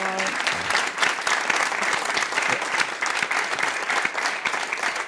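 Theatre audience applauding, many hands clapping at once, starting suddenly and holding steady.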